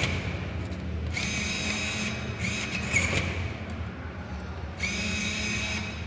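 Vending machine's banknote acceptor motor whirring as money is fed in. It runs in short stretches, stopping and starting several times.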